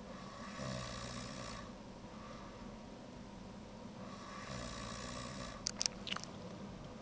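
A person snoring: two snores about three and a half seconds apart, each about a second long, a low tone under a breathy hiss. A few sharp clicks come just after the second snore.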